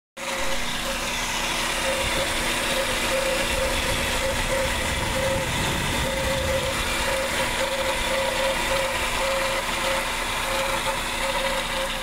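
Car's electric radiator cooling fan running with a steady whine and hum, one tone wavering up and down in level. The excessive noise is the sign of a damaged fan motor.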